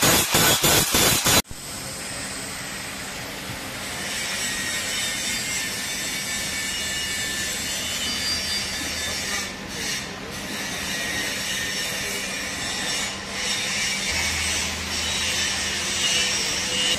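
An angle grinder grinds on the stainless steel pipe and cuts off sharply about a second and a half in. After that a TIG welding arc hisses steadily as the root pass is run on the 3-inch stainless pipe joint, dipping briefly a few times.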